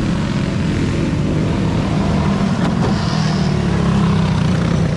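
Racing go-karts' small clone engines running around a dirt oval. The engine noise swells to its loudest as two karts pass close about four seconds in.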